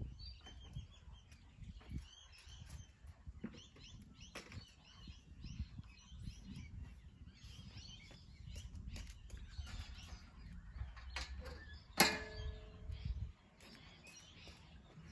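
Birds chirping throughout over a steady low rumble, with one sharp clank about twelve seconds in that rings briefly.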